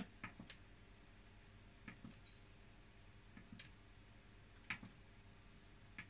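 Near silence with a handful of faint, short clicks from the Temp button on a Hotpoint washing machine's control panel being pressed to step through the wash temperatures, the clearest click a little before the end.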